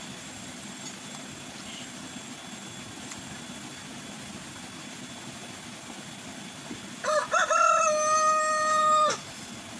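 A rooster crows once near the end: one long call of about two seconds that wavers at the start and then holds. Before it there is only a faint, steady background hiss.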